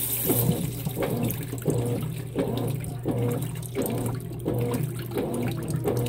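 Consul 16 kg top-load washing machine agitating a full load of jeans: water sloshing in even strokes about every 0.7 s over a steady motor hum.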